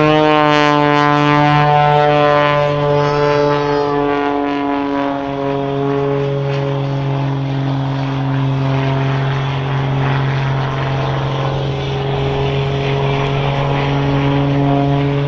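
Pitts S2S Special aerobatic biplane's nearly 400 hp Lycoming engine and propeller droning loudly in flight. The pitch climbs just at the start, sinks slowly over the next few seconds as the plane passes, then holds steady.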